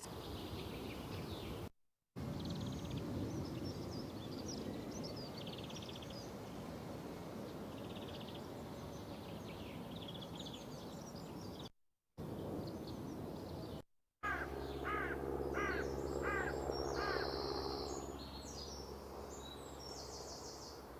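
Recorded birdsong, short chirps and falling calls, played in place of the muted live house sound, broken by three brief drop-outs to silence. A steady low hum comes in under the birds about two-thirds through and fades again.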